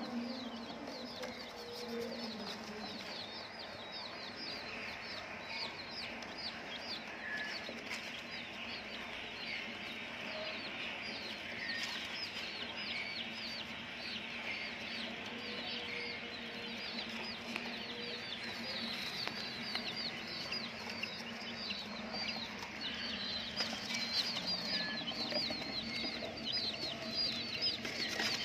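A flock of domestic chicks peeping continuously, many short, high, falling chirps overlapping, growing busier near the end.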